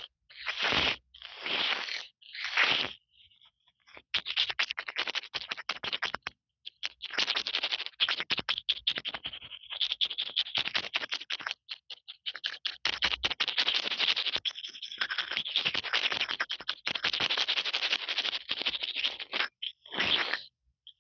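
Fingertips tapping and scratching directly on an earphone's built-in microphone: rapid trains of crackly taps and scrapes in bursts, broken by short pauses.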